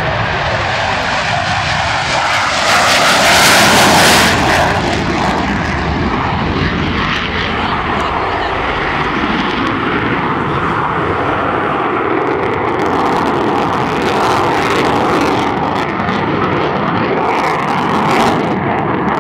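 F-16 fighter jet taking off with afterburner lit, its engine noise swelling to loudest about three to four seconds in as it passes, pitch falling, then a steady jet roar as it climbs away and manoeuvres.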